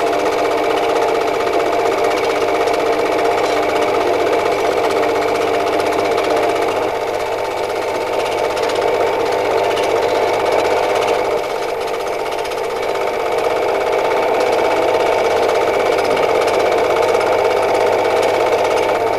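Film projector running with a steady, rapid mechanical clatter.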